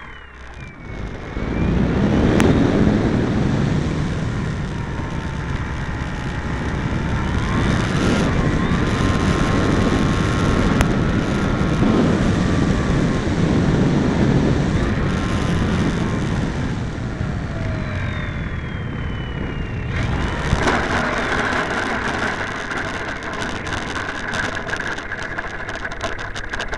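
RimFire brushless electric motor and propeller of an R/C aerobatic plane whining, its pitch rising and falling with the throttle, over a steady rush of air past the onboard microphone. From about twenty seconds in, the tone steadies and a run of rapid clicks comes in as the plane is down on the runway.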